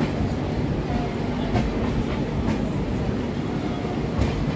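LHB passenger coaches rolling slowly into a station: a steady rail rumble with a few wheel clicks over the track.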